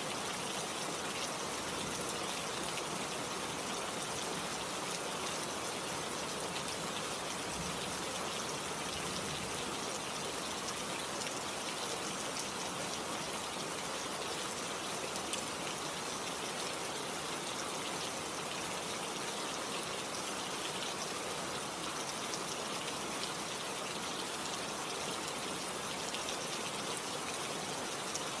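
Steady rain falling, a dense even hiss with fine crackle of drops.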